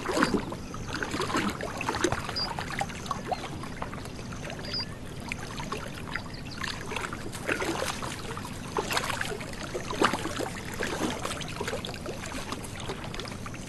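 Water sloshing and splashing in irregular bursts as a lion wades through a shallow swamp.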